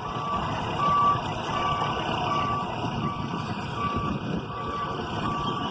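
Reversing alarm on a heavy vehicle beeping at a steady pitch, about once every 0.7 seconds, over the running diesel engine: the machine is backing up.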